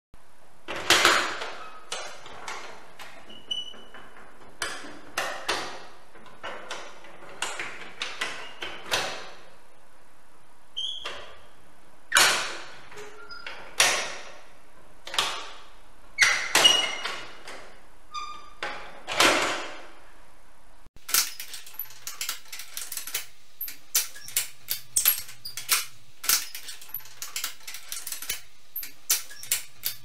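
Hand-wrought iron lock mechanism of a 19th-century Empire-style chest lid being worked: its bolts and spring latches snap and clank in sharp metallic clicks with a brief ring, a second or two apart. About two-thirds of the way through, the clicks turn lighter and quicker, a rapid rattle of small ticks.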